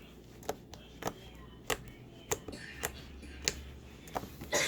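Slime being kneaded and squeezed by hand, making sharp clicking pops as air pockets burst, about eight of them at a fairly even pace of one every half second or so.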